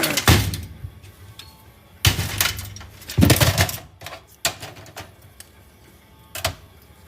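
Several bursts of clattering and clicking as computer scrap is handled and pried apart, with a few sharp knocks in between.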